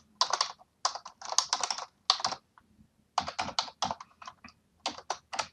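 Typing on a computer keyboard: a run of quick keystrokes entering a password, with a short pause midway.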